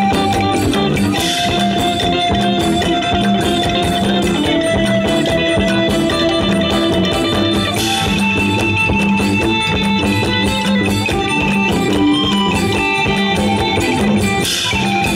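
Live Isan folk band playing an instrumental passage: a steady drum beat with guitars and long held melody notes, and a cymbal-like crash three times, about every six seconds.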